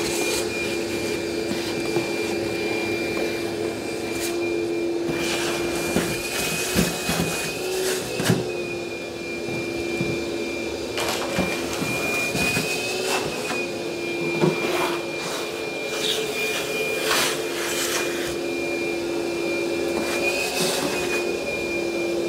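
Shop vacuum running steadily with a constant whine, with scattered knocks and clatters throughout.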